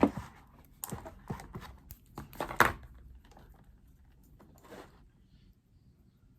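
Makeup being handled: a series of light clicks and taps with some rustling as a palette and brush are picked up and used, loudest at the start and about two and a half seconds in, fading out after about five seconds.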